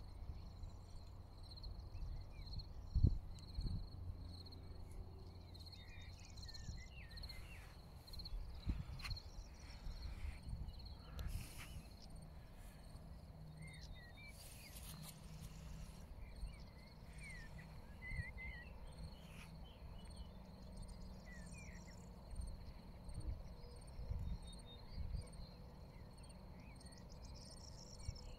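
Meadow ambience: insects trilling steadily in a fast, high, pulsing buzz, with scattered short chirps and a low rumble of wind on the microphone. A sharp thump about three seconds in is the loudest moment.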